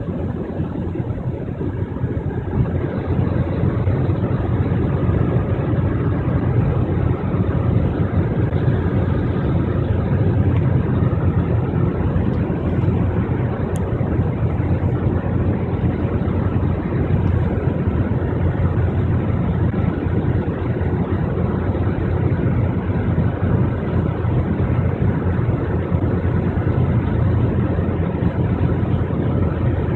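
Steady low drone of a car travelling at motorway speed, heard from inside the cabin: tyre and road noise mixed with the engine.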